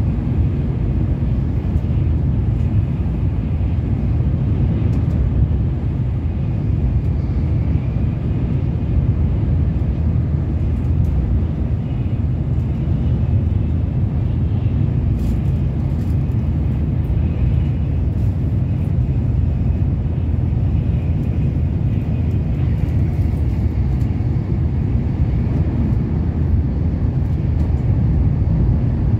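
Steady low rumble of a Tokaido Shinkansen bullet train running at speed, heard from inside the passenger car.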